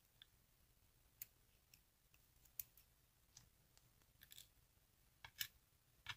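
Faint, irregular small clicks of metal tweezers handling lock pins and springs, tapping against the lock core and a plastic pinning tray.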